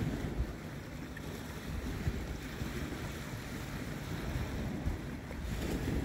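Wind buffeting the microphone, a steady low noise that comes in gusts, over the soft wash of small waves on a rocky shore.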